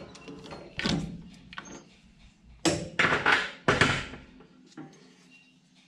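Metal knocks and clunks as a lathe chuck is loosened and a steel workpiece is lifted out of its jaws, a few single knocks with the loudest cluster about three seconds in.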